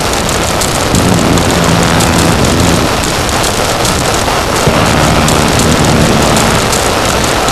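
Harsh noise music: a loud, dense wall of distorted static, with a low droning hum that surfaces about a second in, drops out, and returns past the halfway point.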